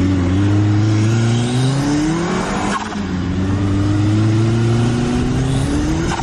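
Turbocharged side-by-side UTV engine accelerating hard, heard from the driver's seat. The revs climb, drop back about three seconds in, then climb again until they fall back near the end.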